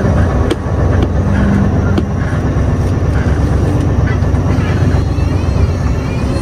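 Scania V8 truck's diesel engine running steadily while the truck is driving, a continuous low drone with a few light clicks in the first two seconds.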